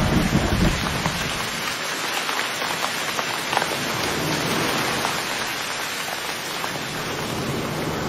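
Steady rain falling, with many individual drops pattering close by. A deep rumble fades out within the first second.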